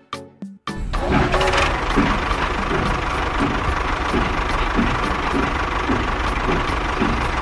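A small engine or motor starts up abruptly just under a second in and runs steadily, with a regular low pulse about every three-quarters of a second.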